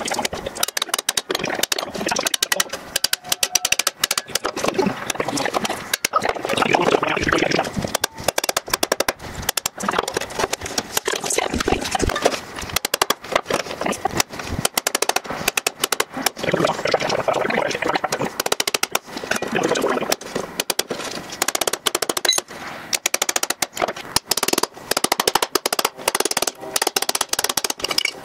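Steel hammer striking thin sheet steel held in a bench vise, quick repeated blows that bend the sheet-metal tabs of a small forge's steel body into place.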